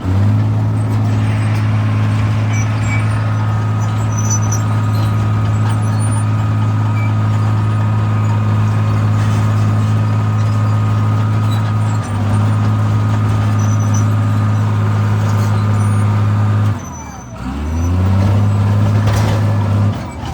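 Cat D4C LGP bulldozer's diesel engine held at full throttle while pushing a dirt pile in first gear: a loud, steady drone with a faint whine above it. Near the end the engine note falls, climbs back up, and falls again.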